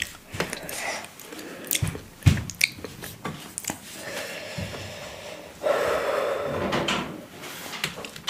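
Quiet eating and table-handling sounds close to a microphone: scattered soft clicks and knocks, with a longer breathy, rustling stretch a little over halfway through.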